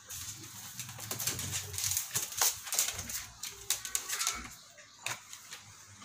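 Rapid, irregular clicking and tapping as a small dog is handled on a plastic table: claws and hands knocking on the tabletop.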